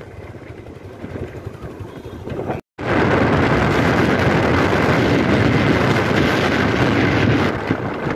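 Motorcycle engine running while the bike is ridden, mixed with wind noise on the microphone. It is quieter at first, then after a short break about three seconds in it becomes a loud, steady rush.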